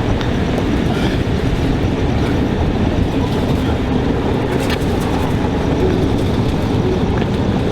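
Loud, steady rumbling noise with scattered clicks, like a sound-effects bed.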